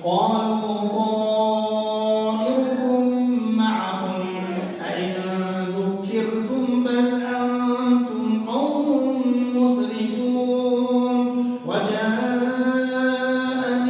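A man's voice reciting the Quran in slow melodic tajwid chant, drawing out long held notes that step up and down in pitch, each phrase starting fresh every few seconds.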